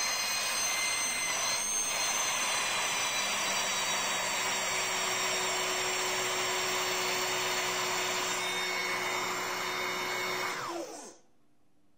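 Power Team PE554 electric hydraulic pump with a 1-1/8 hp motor, running steadily with a loud whine. About eleven seconds in it is switched off and the motor winds down quickly, falling in pitch.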